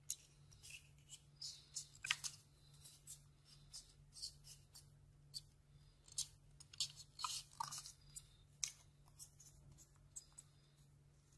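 Square sheet of origami paper being folded and creased by hand: irregular light crackles and rustles, with a few sharper crinkles as folds are pressed flat.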